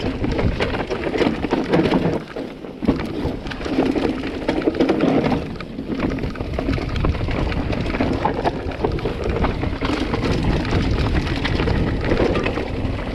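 Mountain bike rolling fast over a rough, rocky trail, heard close from a chest-mounted action camera: a continuous crunch of knobby tyres on stones and gravel, with constant small knocks and rattles from the bike.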